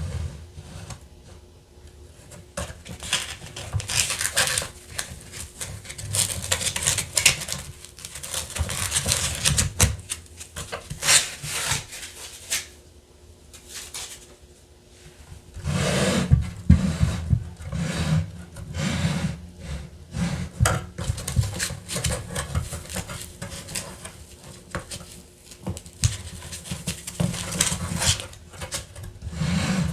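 Hands handling toy pieces and packaging: irregular rustling and scraping with light clicks and knocks, quieter for a couple of seconds around the middle.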